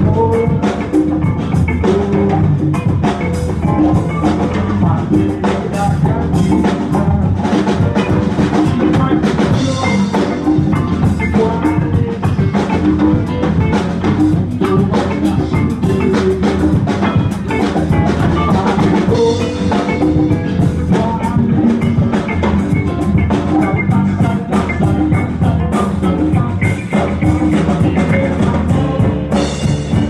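Live funk band playing an instrumental passage: electric bass, drum kit and electric guitar, with steady drum hits and a busy bass line, heard as room sound in a small bar.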